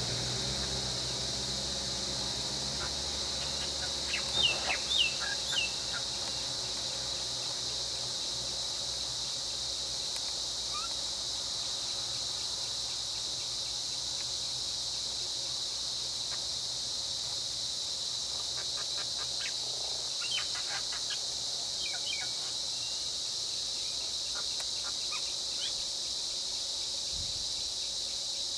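Steady high-pitched drone of insects in the forest, with a bird giving a few short chirps about four seconds in and again around twenty seconds in. A low vehicle engine hum fades away over the first few seconds.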